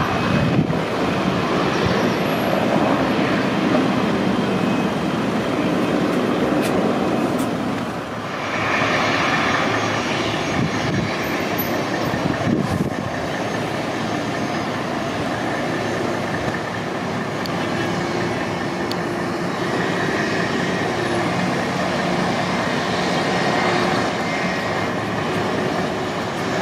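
Boeing 747-400 turbofan engines running as the airliner taxis: a steady, loud jet noise with a faint whine.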